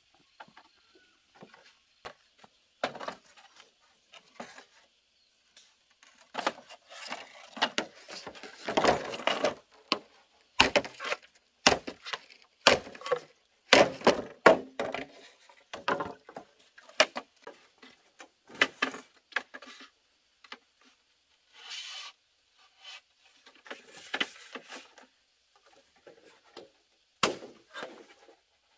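Green bamboo poles knocking and clattering against each other as they are handled, and a machete striking and trimming them in sharp, irregular chops.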